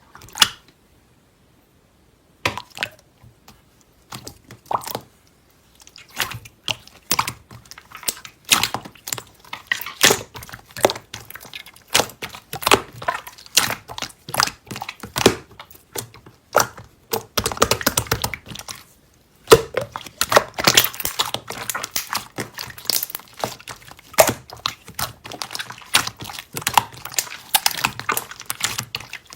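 Slime being pressed, squeezed and stretched by hand, making irregular sticky clicks and crackles. The clicks come singly and far apart at first, then crowd into an almost unbroken crackling from a little past halfway.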